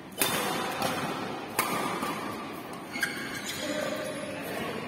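Badminton rackets striking the shuttlecock in a rally, three sharp hits roughly a second and a half apart, ringing in a large hall over steady background noise.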